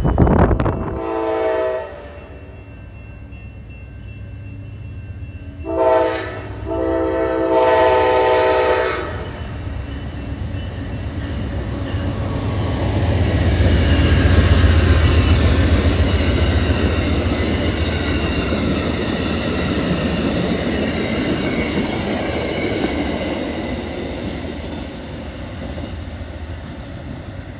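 Amtrak passenger train sounding its horn: a brief blast about a second in, then a short blast and a long one. The train then passes at speed, its wheels clacking over the rail joints. The rumble builds to a peak about halfway through and fades slowly as the train recedes.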